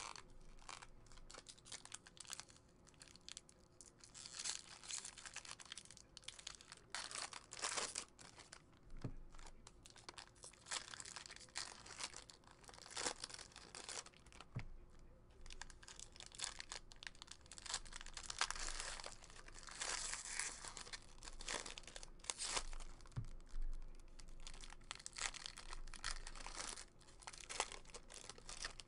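Baseball card pack wrappers being torn open and crinkled by hand, an irregular run of rustling and crackling that keeps going with short pauses.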